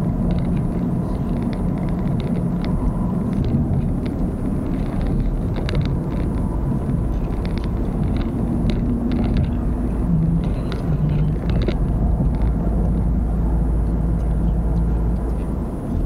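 Steady rumble of a moving road vehicle heard from on board, its engine humming and shifting pitch a little about ten seconds in, with scattered light clicks and rattles.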